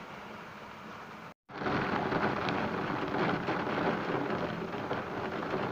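Heavy downpour: a steady hiss of rain, which cuts out for an instant about a second and a half in and comes back louder.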